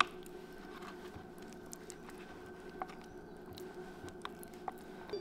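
Faint handling sounds of raw lobster tail being worked by hand on a wooden cutting board: a few soft, scattered clicks and taps of shell, over a steady low hum.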